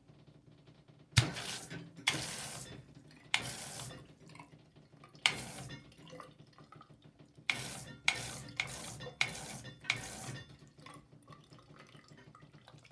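Handheld bidet shower sprayer spraying water in about nine short, sharp-edged bursts, separated by brief pauses.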